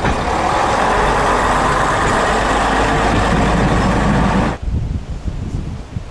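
AC Cars railbus W79978 running past, its diesel engine and running gear making a loud, steady noise that cuts off abruptly about four and a half seconds in, leaving only wind and rustling leaves.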